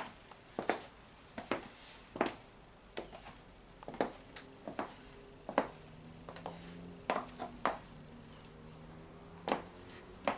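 Irregular clicks and knocks of hands handling a 1/5-scale radio-controlled car and its plastic parts, about twenty light taps and clacks spread unevenly, with a faint steady hum in the second half.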